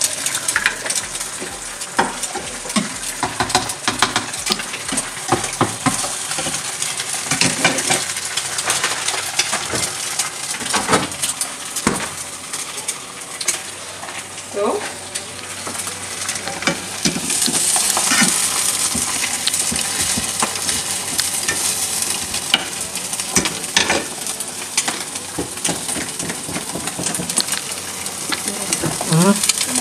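Two eggs frying in butter in a pan, sizzling and spattering steadily, with many small clicks and pops through it; the sizzle grows a little louder about two-thirds of the way in.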